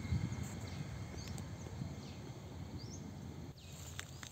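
Rural outdoor ambience: a steady low rumble with several faint, short, rising bird chirps and a thin steady high tone. A couple of sharp clicks come near the end.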